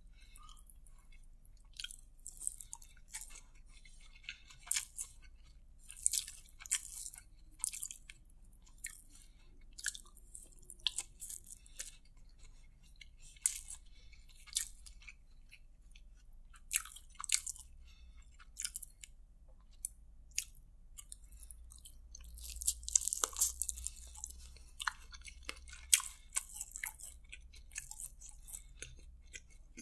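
Close-miked chewing of a mouthful of fried rice eaten by hand, heard as irregular soft wet clicks and smacks, busiest a little over two-thirds of the way through.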